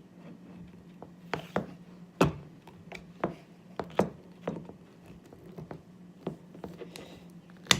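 Wire cutters snipping and clicking as insulation is stripped from heavy wire ends: a series of short, sharp, irregular clicks over a faint steady low hum.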